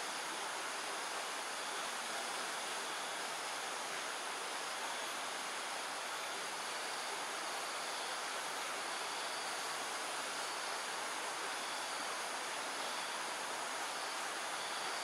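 Steady outdoor ambience: an even, hiss-like rush with faint thin high-pitched tones running through it and no owl calls.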